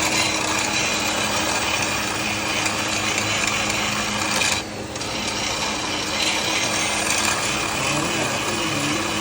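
Electric power tool finishing a metal firearm part: a steady motor hum under a continuous hissing scrape, which breaks off briefly about halfway and then resumes.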